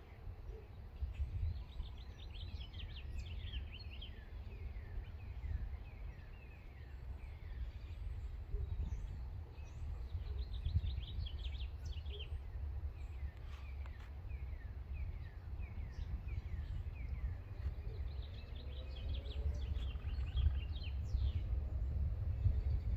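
Songbirds singing short phrases of quick descending chirps, repeated several times, over a low steady rumble.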